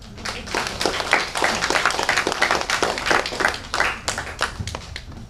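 Audience applause, a dense patter of many hands clapping that starts just after the opening and thins out near the end.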